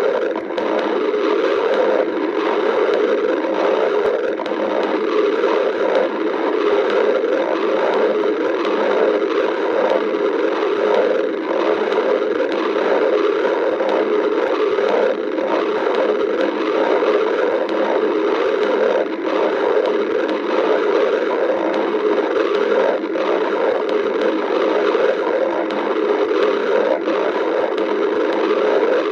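A hungry stomach growling: a continuous low rumble that wavers in loudness without a break.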